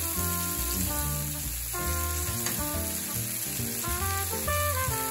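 Chicken breasts sizzling as they fry in a frying pan, with background music over the sizzle.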